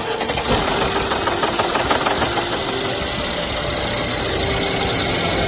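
Mercedes-Benz M276 V6 engine running after a cold start with a continuous fast rattle ("哗啦啦"), the sign of a damaged, slipping intake camshaft adjuster.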